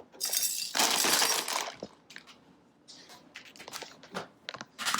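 Handling noise: a noisy clattering burst about a second and a half long, then scattered light clicks and knocks, and another clattering burst near the end.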